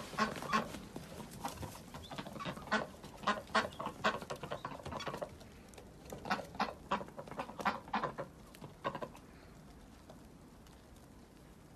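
White domestic ducks quacking in a rapid run of short calls, several a second, which die away about nine seconds in.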